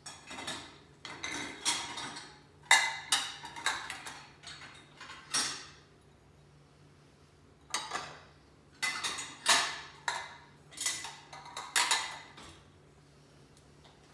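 Dishes and cutlery clinking and clattering as they are lifted out of a dishwasher and set down, in two runs of sharp knocks with a short pause between them.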